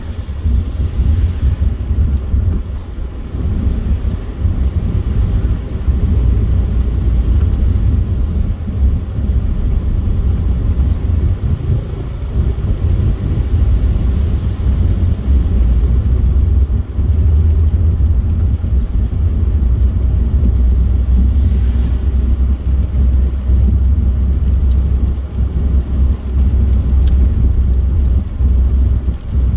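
Car driving at motorway speed on a rain-wet road: steady low rumble of tyre and engine noise.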